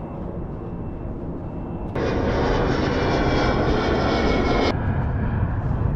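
Airplane engine noise, loud and steady, starting abruptly about two seconds in and cutting off sharply near the end. A low rumble runs under it before and after.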